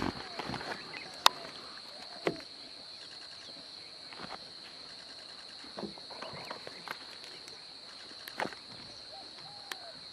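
Steady high-pitched drone of forest insects, with a few sharp clicks and knocks, the loudest about a second in, and several short arched calls scattered through.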